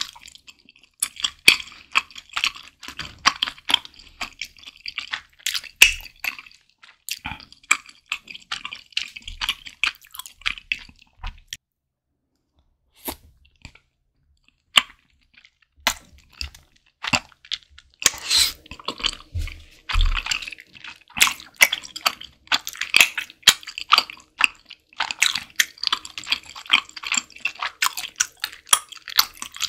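Close-miked mouth sounds of eating malatang: wet chewing with crunchy bites and sticky smacking clicks. It thins out to a near pause of a few seconds in the middle, then picks up again, busier than before.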